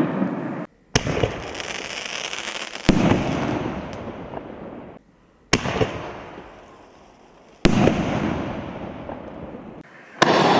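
Canister shell fireworks bursting in the sky: five sharp booms, two to three seconds apart, each followed by a rumble that fades away.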